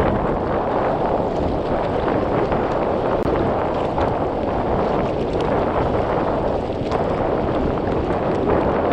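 Steady wind noise buffeting the camera microphone as a sea kayak is paddled, with water swishing beneath it.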